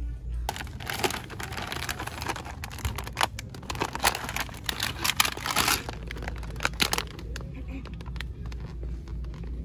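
Crinkling and rustling of handled packaging, in dense irregular bursts that ease off about seven seconds in, over a steady low hum.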